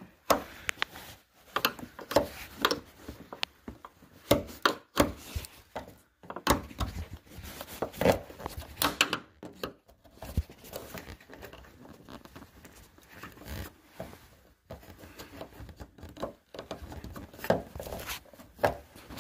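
Irregular clicks, scrapes and rubbing as a screwdriver pries and twists a plastic push-in retaining clip of a car door's weather strip loose.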